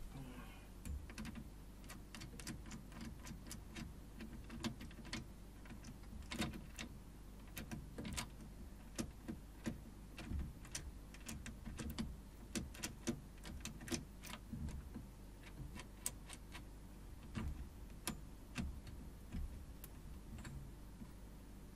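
Irregular small metallic clicks and taps, a few a second, as a Gibraltar clamp on an electronic drum kit's metal rack is worked and tightened by hand.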